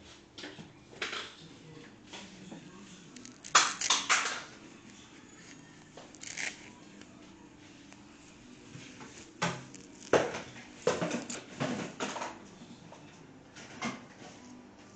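Cloth rustling and handling noise as a baby doll's clothes are pulled off and its limbs moved, in short irregular scrapes and rustles, loudest about four seconds in and again between ten and twelve seconds.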